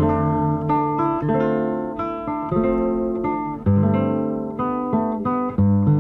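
Nylon-string acoustic guitar playing an instrumental passage of a Brazilian song: plucked bass notes under chords and melody notes, with fresh strong strokes about two-thirds of the way through and again near the end.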